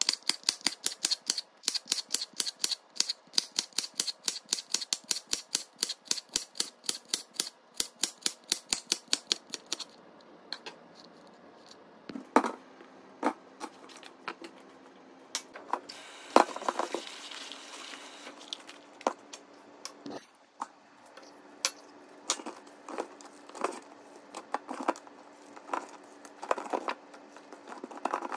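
Chef's knife slicing bitter melon on a plastic cutting board: a fast, even run of chops, about four a second, that stops about ten seconds in. After that come scattered knocks and clatter as the cutting board is tipped over the sink and the slices are handled in a plastic colander.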